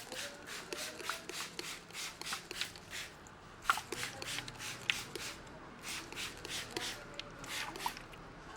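A barber's hands massaging a head and hair, with quick brisk rubbing strokes at about four a second and two sharper clicks about four and five seconds in.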